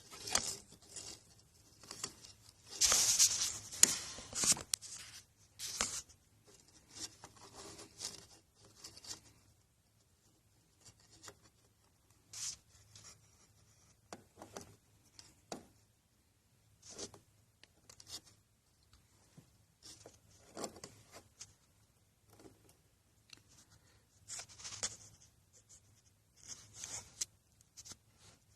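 Irregular scraping, rustling and clicking of hands handling tools and parts, with a longer, louder scrape about three seconds in.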